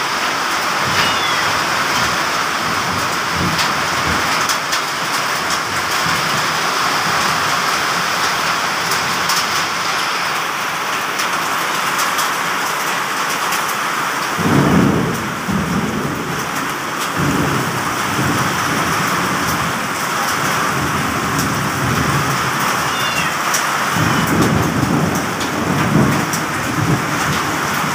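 Heavy rain pouring down in a storm, a steady hiss dotted with sharp ticks of drops striking surfaces. Deep rumbles of thunder swell up about halfway through and again near the end.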